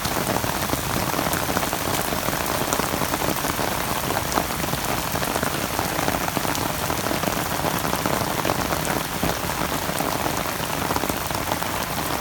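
Steady rain falling, a dense even hiss of many small drop impacts that keeps on without a break.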